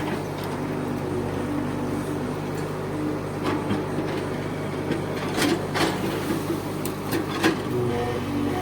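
Bulldozer's diesel engine running steadily under load, with about five sharp knocks and cracks in the second half as it works against dead tree roots.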